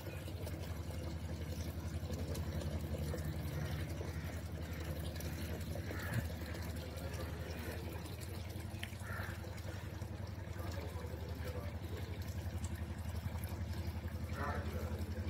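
A steady low hum of running machinery.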